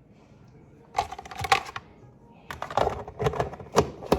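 Plastic food containers clicking and clattering as they are handled, in two runs: a short cluster about a second in, and a longer run of sharp clicks from about two and a half seconds on.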